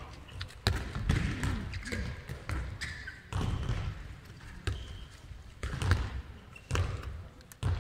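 Handballs bouncing on the sports hall's court floor and being thrown, a run of irregular dull thuds about once or twice a second, echoing in the large hall.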